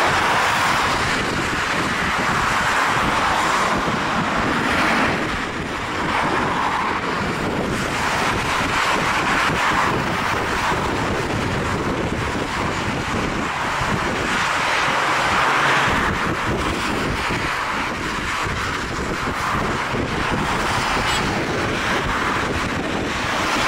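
Airbus A320 jet engines running at taxi power as the airliner rolls past, a steady rushing noise that swells and eases every few seconds, with wind buffeting the microphone.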